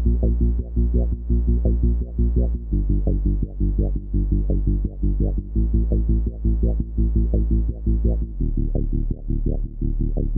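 Synthesizer bass line from a software modular patch in VCV Rack: an oscillator shaped by an envelope, VCA and filter playing deep drum-and-bass style notes. The pitch changes every second or two under short plucked attacks that repeat several times a second.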